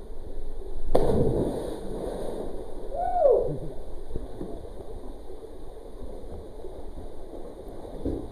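A person jumping feet-first into a creek pool: one loud splash about a second in, a short shout falling in pitch about two seconds later, then water churning and splashing as he swims.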